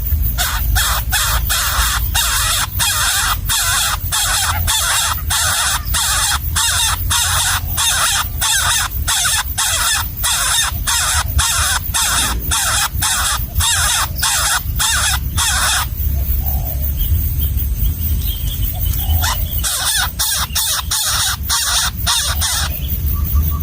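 Hungry nestling begging in the nest: harsh, raspy calls repeated about two a second for some sixteen seconds, a pause of a few seconds, then another short run. A low rumble runs underneath.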